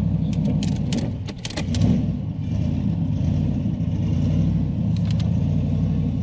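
Chevrolet Camaro ZL1's supercharged V8 running at a steady cruise, a low even rumble. A cluster of short sharp clicks comes in the first two seconds, and a couple more about five seconds in.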